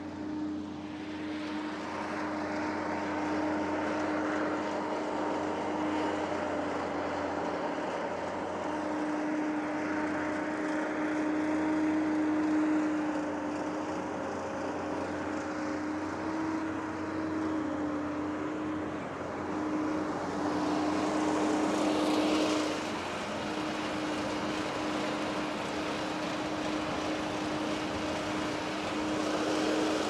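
Case IH sugarcane harvester running under test as it drives: a steady engine drone with a held humming tone, swelling briefly to its loudest about two-thirds of the way through.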